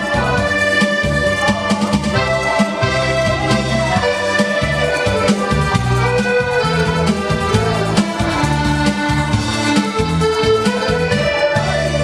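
Piano accordion playing a lively melody with held chords over a steady, pulsing bass accompaniment.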